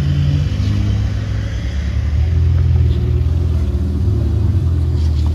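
Ferrari 488 Pista's twin-turbo V8 rumbling at low revs as the car moves slowly through traffic, a steady deep drone.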